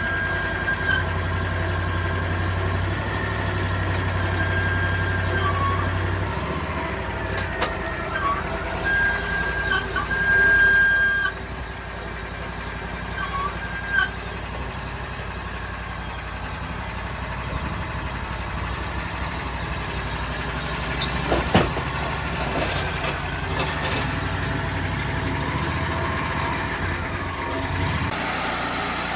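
Engine running steadily at idle, with a high whine that comes and goes through the first half and a sharp knock about two-thirds through.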